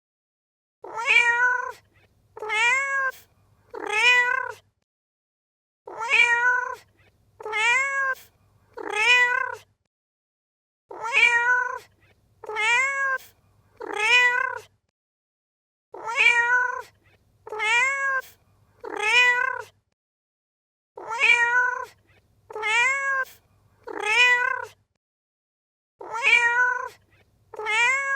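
Domestic cat meowing in sets of three, each meow rising then falling in pitch. The set repeats about every five seconds as a looped recording, with silence between sets.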